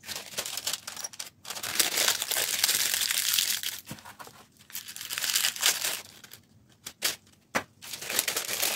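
A sheet of white wrapping paper being handled and crumpled by hand, rustling and crinkling in fits and starts, loudest about two to three and a half seconds in.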